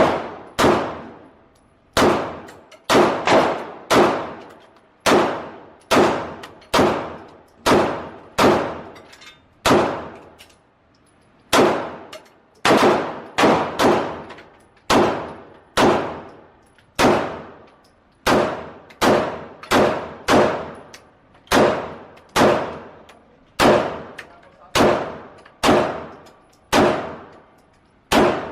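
Gunshots fired one after another at a steady pace, roughly one to two a second, with about forty shots and a brief pause about ten seconds in; each shot rings and echoes briefly before the next.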